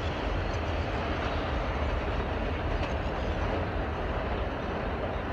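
Steady running noise of a passenger train on the track, with no horn or separate knocks.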